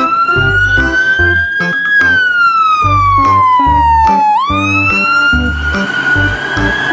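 Wailing emergency siren: one tone rising for about two seconds, falling for about two and a half, then rising again. It plays over background music with a steady beat.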